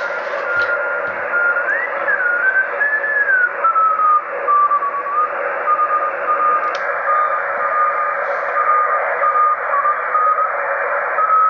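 A Morse code (CW) signal on the 80-metre band, heard through an HF transceiver's loudspeaker: a single keyed tone over receiver hiss. Early on the pitch slides up and back down as the tuning is moved, then it settles into steady on-off keying. A click about seven seconds in, after which the hiss sounds narrower.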